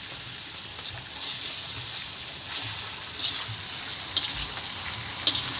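Beef and spice paste sizzling steadily as they sauté in a pan, with a few sharp taps of the stirring utensil against the pan, about four and five seconds in.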